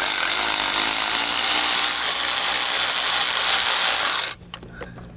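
Power ratchet running continuously for about four seconds, spinning the 13 mm nut off the starter's power-cable terminal, then cutting off suddenly.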